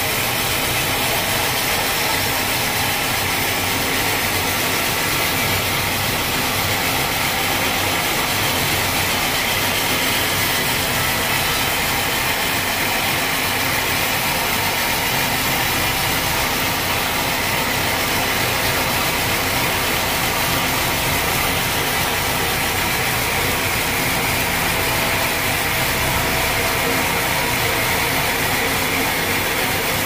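Band sawmill running steadily, its blade cutting lengthwise through an acacia log with a continuous hissing whine over the motor's hum.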